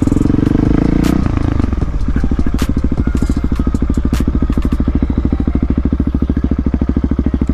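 Husqvarna dirt bike's single-cylinder engine, revving for about the first second, then dropping by about two seconds in to a slow, even putter at low speed. A few sharp clicks come in the middle.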